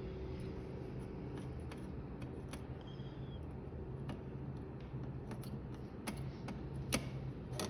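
Faint, scattered small clicks and taps from handling a soldering iron and circuit board during hand soldering, over a low steady hum. A sharper click comes near the end.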